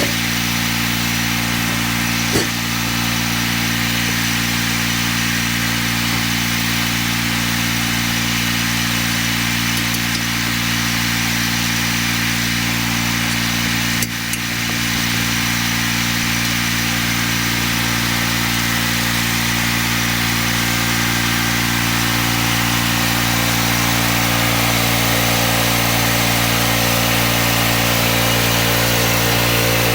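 Engine of a homemade band sawmill running steadily while the band blade saws through cedar, with a sharp click about two seconds in and another about halfway through.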